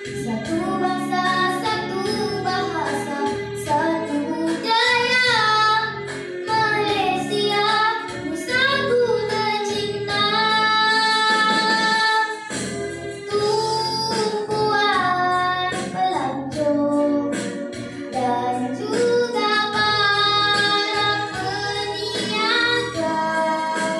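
A young girl singing a patriotic song solo into a microphone, holding long notes, with musical accompaniment underneath.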